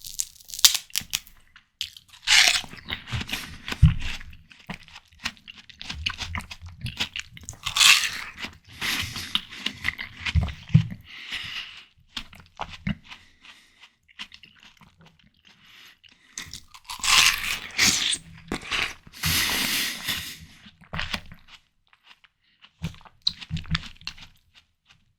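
Close-up bites into juicy watermelon flesh and chewing, crisp crunching with wet slurping, in three main spells with quieter pauses between.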